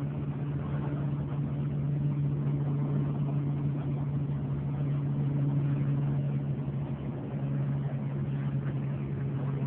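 A vehicle engine idling, a steady low hum that holds one pitch throughout.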